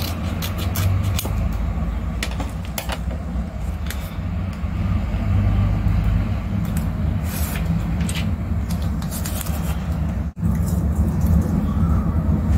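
A steady low rumble with scattered light clicks and rustles of washi tape and paper being cut and handled. The sound drops out for a moment about ten seconds in.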